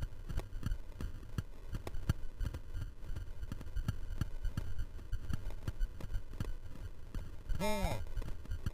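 Fat bike rolling downhill over a bumpy snow-covered trail: a constant low rumble of wind and riding on the camera's microphone, with frequent knocks and rattles from the bike. Near the end comes a brief wavering tone.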